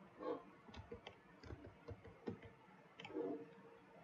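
Faint, irregular clicks of a computer mouse, roughly one every half second.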